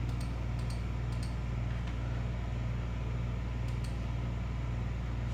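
Steady low hum of room tone, with a few faint ticks.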